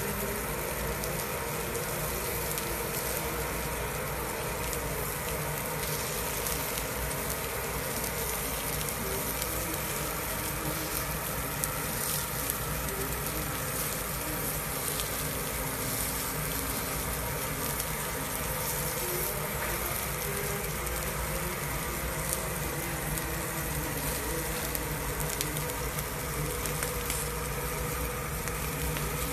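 Beef steaks searing on a hot grill: a steady sizzle with scattered small crackles and pops.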